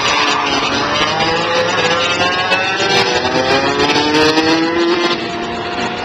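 Several racing kart engines running at high revs and overlapping, their pitches rising as the karts accelerate. The level drops a little about five seconds in.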